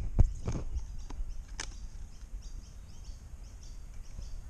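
A few sharp clicks and knocks in the first two seconds, then birds chirping faintly over steady outdoor background noise among trees.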